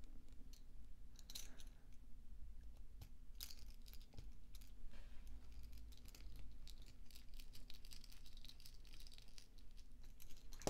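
Faint handling noises: scattered small clicks and short scratchy rustles over a low steady hum.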